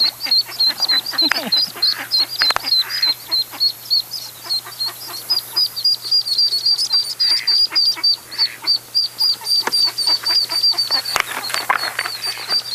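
Ducklings peeping, an unbroken run of short high chirps about four a second, with scattered light knocks and rustles as they are handled in a bucket.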